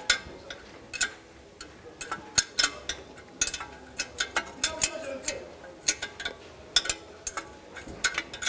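Metal hand tools clicking and clinking against the exhaust manifold nuts as they are loosened: irregular sharp clicks, a few a second at times, with short pauses between.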